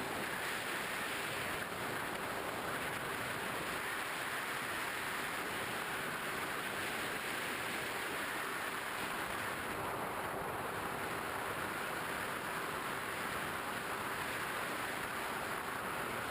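Steady rushing noise of a Skywalker 1900mm FPV model plane in flight, as heard from its onboard camera: airflow and the electric motor and propeller together, with a faint steady hum.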